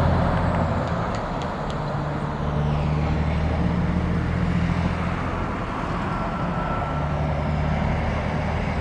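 Ford Falcon GT V8 engine running steadily at low revs.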